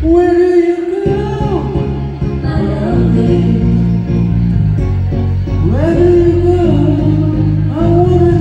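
Song with instrumental accompaniment: a singing voice holds long notes and slides between them, over a steady low backing that changes chord every second or two.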